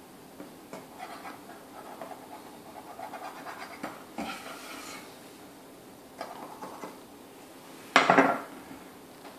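A kitchen knife scraping around the rim of a pie dish, trimming the excess crust dough in light scratchy strokes. About eight seconds in, a loud clatter as the knife is set down on the wooden counter.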